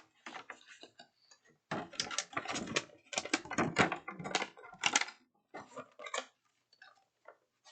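Game cards and their packaging being handled and shuffled: a quick run of clicks and rustles starting about two seconds in, then a few scattered lighter clicks.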